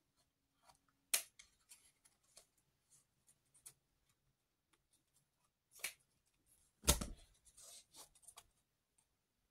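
Scissors snipping at a headband's packaging: a scatter of small clicks and snips, with a louder thump about seven seconds in.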